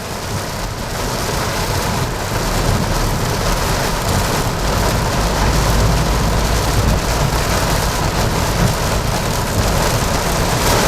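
Heavy rain falling on a car as it drives, a dense steady hiss that builds slightly over the first couple of seconds, with a low road rumble underneath.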